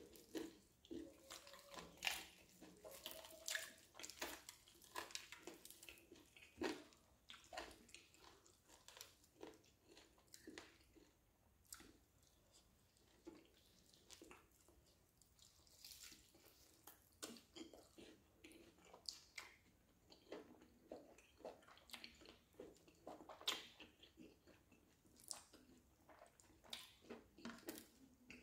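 Faint chewing of roasted chicken, with many short, irregular mouth clicks, along with fingers pulling the meat off the bird.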